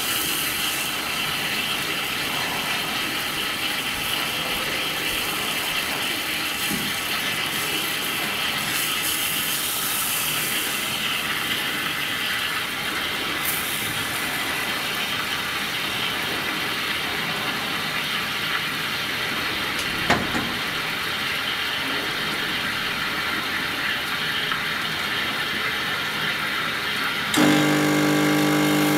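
Espresso machine steam wand hissing steadily as it steams milk in a stainless steel jug. Near the end a steady, low buzzing hum joins the hiss and becomes louder.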